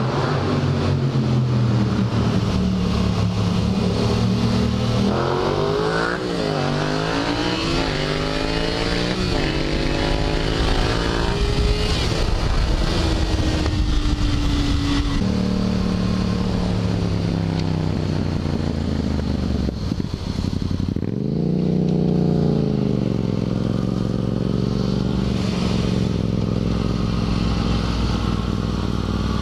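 Motorcycle engine accelerating up through the gears, its pitch climbing and dropping back with each of several quick upshifts, then running at a steady cruising pitch with wind rushing over the helmet-mounted microphone. Its pitch falls and climbs again once about two-thirds of the way through.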